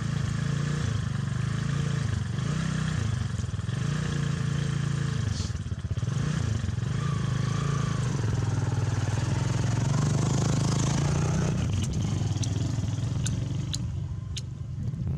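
An engine running steadily, with a low hum and a fine regular pulse, dipping briefly about five seconds in; a few sharp clicks near the end.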